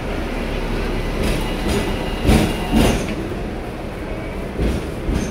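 Hong Kong double-decker electric tram running on its street rails, heard from the upper deck: steady running noise of the car and wheels, with two loud knocks about half a second apart a little past two seconds in.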